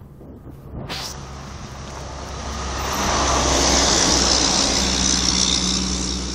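A car driving up: engine and tyre noise grows louder over a few seconds, then eases off slightly. There is a sharp click about a second in.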